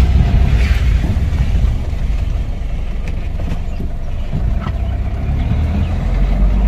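4x4 motorhome's engine running with a steady low rumble as the vehicle moves slowly into floodwater covering the road.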